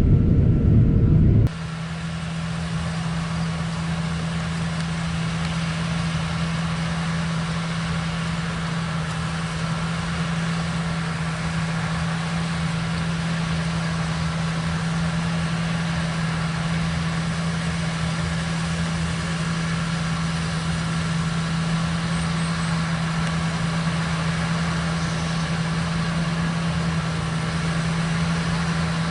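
John Deere T670i combine harvester running steadily: a constant low hum with an even hiss over it, unchanging in pitch. For the first second and a half a louder low rumble plays, then it cuts off abruptly.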